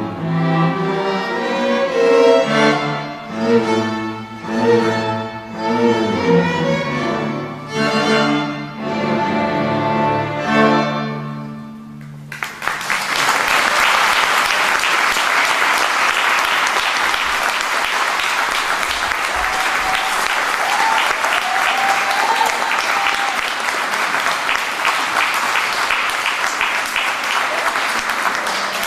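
A school string orchestra of violins and cellos plays the closing chords of a piece, dying away about twelve seconds in. The audience then breaks into steady applause.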